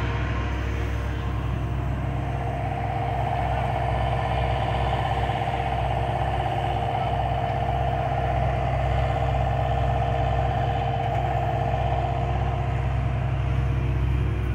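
John Deere 50G compact excavator's diesel engine running steadily under work, with a steady higher whine from the hydraulics from about two seconds in until near the end as the arm digs and lifts a bucket of soil.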